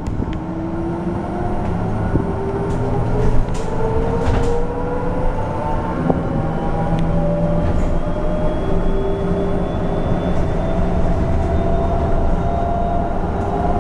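Electric traction motor of a RAC EV Race 150 electric bus whining as the bus gathers speed, the whine rising slowly in pitch over a steady rumble of road and tyre noise heard inside the cabin. A few light clicks come about three to five seconds in.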